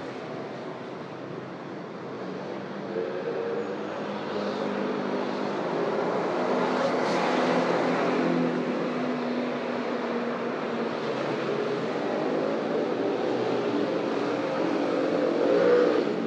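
Road traffic: motor vehicles passing close by with engines running, the sound swelling from about two seconds in and peaking again just before the end.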